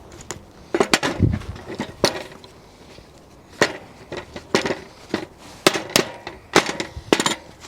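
Aluminium casting mould being handled and opened by a gloved hand, with a string of irregular sharp metal clinks and knocks as the parts knock together and the freshly cast lead slugs are tapped free; a low thud comes about a second in.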